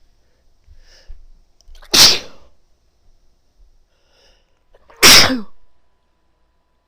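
A woman sneezing loudly twice, about three seconds apart, with short, quieter breaths drawn in before each sneeze.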